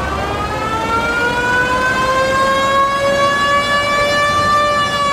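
Vintage fire engine's mechanical siren wailing: one long tone that rises slowly in pitch and begins to fall near the end.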